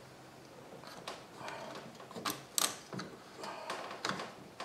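A hose clamp being worked back onto a power steering hose: light scraping and fumbling with a few short, sharp metal clicks from about two seconds in.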